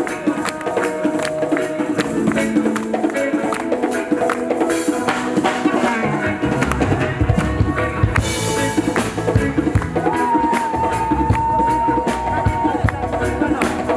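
Live band music: drum kit, guitar and hand shakers playing a steady rhythm, with one long held note about ten seconds in.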